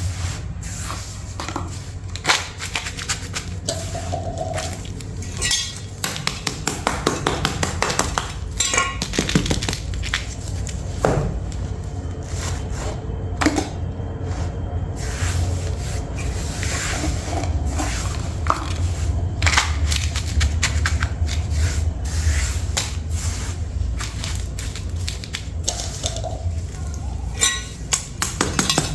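Irregular clatter and knocks of household objects being handled, over a steady low hum.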